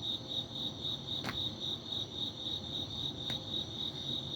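Crickets chirping steadily, a high pulsing trill of about four pulses a second, with two light clicks about a second in and again near three seconds.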